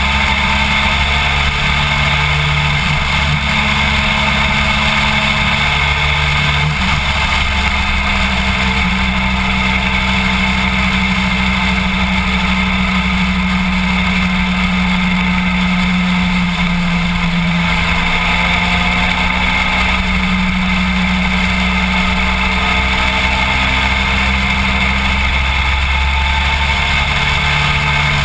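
A BMW F800GS's parallel-twin engine running at a steady highway cruise, its note holding nearly constant, under heavy wind and road rush.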